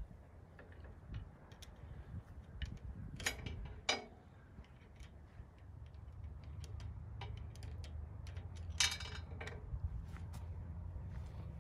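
Hand tools and small steel bolts clicking and clinking against a steel winch mounting bracket as bolts are worked into place, with a few louder metal scrapes about three and four seconds in and again near nine seconds.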